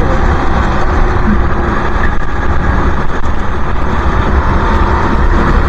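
Go-kart engine running at racing speed, heard from onboard the kart, with a loud, uneven low rumble throughout and other karts running close by.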